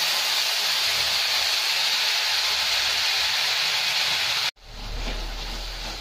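Wet ground spice paste hitting hot oil in a steel kadai: a loud, steady sizzling hiss that cuts off abruptly about four and a half seconds in, followed by softer sizzling as the paste is stirred near the end.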